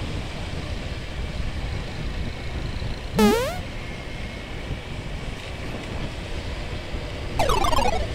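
Steady wind and running noise on the helmet microphone while riding an automatic motor scooter, with a short rising pitched sound about three seconds in and a falling pitched sound near the end.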